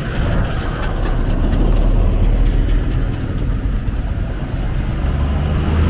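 Highway traffic going by close at hand: a dump truck and a jeepney passing, with engines running and a steady low hum, and a steadier engine drone joining about five seconds in.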